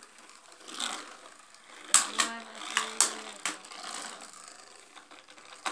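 Two Beyblade spinning tops, Xeno Xcalius and Victory Valtryek, whirring in a plastic washbasin. They clack sharply against each other and the basin several times.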